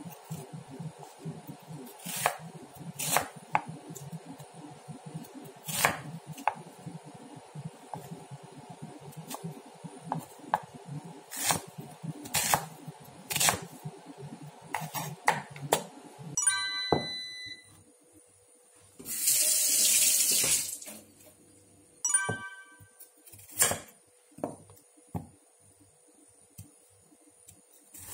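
Kitchen knife chopping an onion on a wooden cutting board: irregular sharp knocks of the blade striking the board. About two-thirds of the way through, a hissing rush lasts a second or two.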